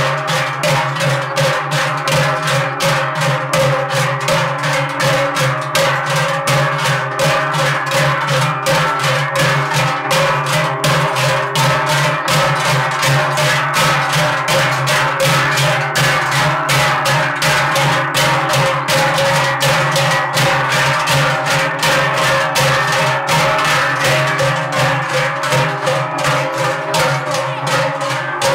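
A marching group of Swiss Trinkler swinging large cowbells (Trinkeln) in unison. The bells ring in a steady, even rhythm of about two to three strokes a second.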